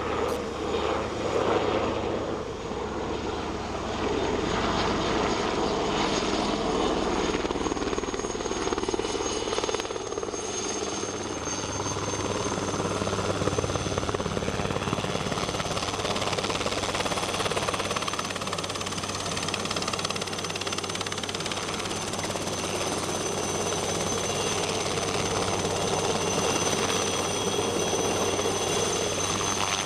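Small helicopter flying close by with an underslung fertiliser bucket: steady engine and rotor noise with a thin high whine running through it.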